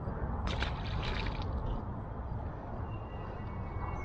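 Water splashing and trickling, with a cluster of short splashy crackles about half a second to a second and a half in, over a steady low rumble.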